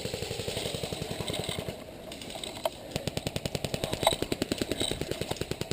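Airsoft electric guns firing on full auto: a burst of rapid, evenly spaced shots lasting almost two seconds, a pause of about a second, then a longer rapid burst.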